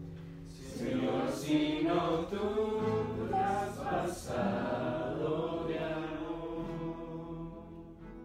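Background music of voices singing or chanting, choir-like, over sustained low notes, fading out over the last couple of seconds.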